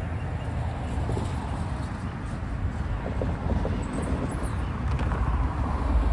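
Road traffic driving across a railroad grade crossing: cars and a pickup towing a trailer pass close by, with engine and tyre noise getting louder toward the end.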